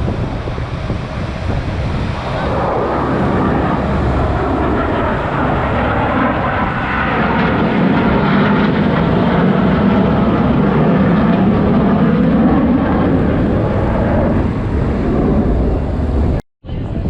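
Fixed-wing aircraft engines running as planes fly past, swelling louder through the middle with some falling and rising pitch glides. The sound cuts out completely for a split second near the end.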